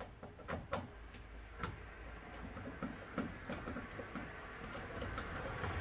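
A string of small, irregular clicks and ticks from a hex (Allen) tool working the screw that holds a car's plastic door card.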